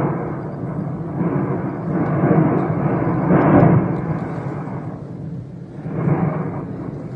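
Rumbling noise of the Volcán de Fuego eruption on an eyewitness video's soundtrack, continuous and swelling and easing, loudest about three and a half seconds in.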